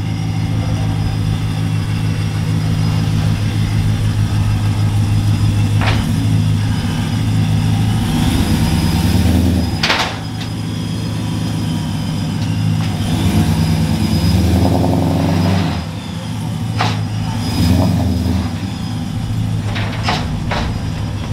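Boosted 2012 Ram 1500 pickup's engine idling as the truck creeps onto dyno ramps at low speed, with the engine note rising twice under light throttle. A few sharp knocks are heard along the way.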